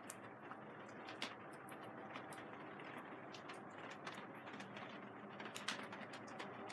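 Raindrops tapping on the plastic sheeting of a vinyl greenhouse: a steady patter of irregular sharp ticks over an even hiss of rain.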